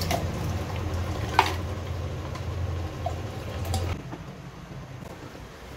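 Steady low hum with a few faint clicks and taps. The hum cuts off about four seconds in, leaving quieter room tone.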